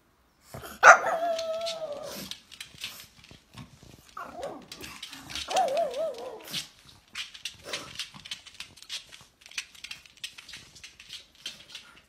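Pug barking in drawn-out, wavering barks, the loudest about a second in and two more around the middle, set off by its owner's coughing. Light clicks and taps follow.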